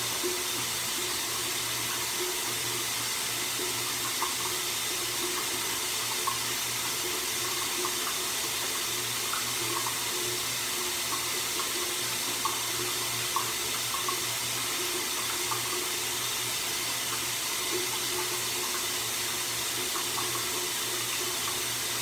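Water running steadily from a bathroom tap or shower, an even spray-like rush with faint scattered splashes.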